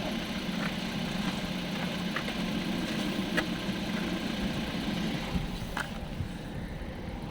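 Hyundai Creta 1.6 idling with its manual gearbox making a steady hum and a few sharp clicks: the foreign grinding noise that the owner hears from the manual gearbox.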